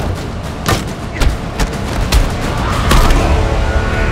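Sound-designed fight effects: a rapid series of about five sharp punch and body-hit impacts over a steady low rumble, with music underneath.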